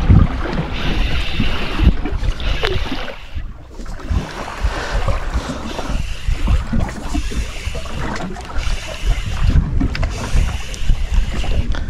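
Wind buffeting the microphone on a small boat at sea, an uneven gusting rumble over the wash of the sea, easing briefly about three and a half seconds in.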